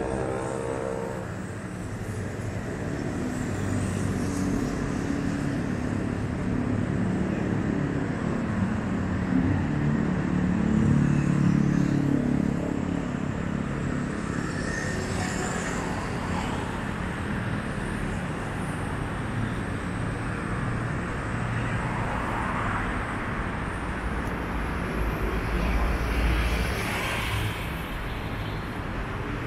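Road traffic on a wide city avenue: cars and motorcycles passing in a steady stream. The traffic swells with a louder pass about ten seconds in and another near the end.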